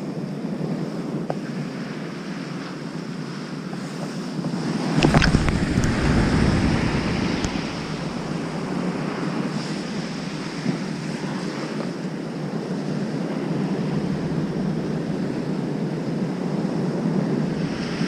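Waves breaking and washing up a sandy beach, with wind buffeting the microphone; the rush swells louder about five seconds in.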